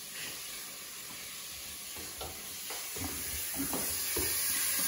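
Diced venison sizzling in hot oil in a stainless steel pan as it is browned to seal the outside. A spatula stirs the pieces, with several short scrapes from about two seconds in.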